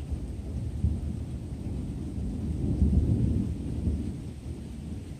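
Thunder rumbling low, swelling to its loudest about three seconds in and then easing off.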